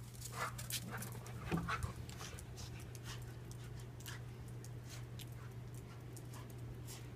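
A dog panting, heard as a string of short, quick breaths that come thicker in the first couple of seconds and then settle into a steadier rhythm.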